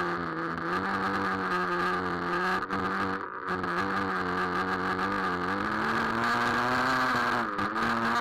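Traxxas Nitro Rustler's small two-stroke nitro glow engine running at a steady buzzing idle, its pitch stepping up slightly about six seconds in and dipping briefly near the end.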